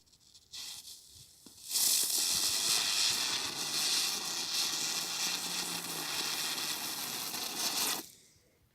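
Weco Silberwirbel, a small spinner firework, burning. After a faint fizz, it hisses loudly and steadily for about six seconds, then cuts off suddenly.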